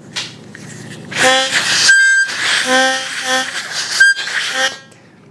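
Harmonica blown in a short, ragged run of notes and chords, heavy with breath noise, including a couple of brief high squeaky tones.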